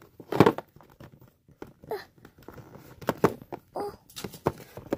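Handling noise from a small hard-plastic toy locker being gripped and tilted while someone tries to get its door open: a few separate sharp clacks and knocks, the loudest about half a second in, with faint rubbing between.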